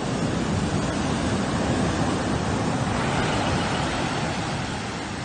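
Ocean surf breaking and washing up a sandy beach: a steady rushing that swells and then eases off near the end.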